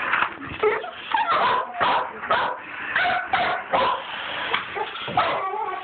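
Boxer dog whining and yipping in a run of short, high cries, about ten in quick succession.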